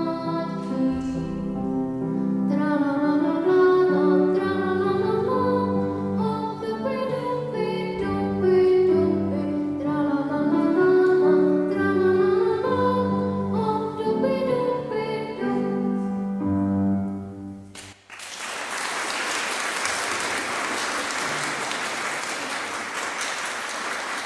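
Solo classical singing with grand piano accompaniment. The song ends abruptly about three-quarters of the way through, and the audience then applauds steadily.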